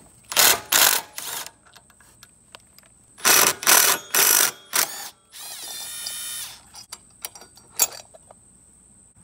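Metal hand tools clicking and ratcheting in several short bursts, with a brief whirring spin about five and a half seconds in, as the torque converter's cover is unbolted. Crickets keep up a steady high trill underneath.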